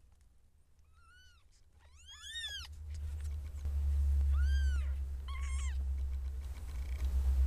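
Siamese kittens about two weeks old giving several short, high-pitched mews, two of them overlapping about two seconds in. A loud low rumble rises under them from about three seconds in.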